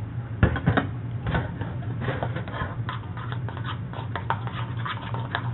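Spoon clicking and scraping against a bowl in quick, irregular taps while stirring a thick mayonnaise-based sauce, over a steady low hum.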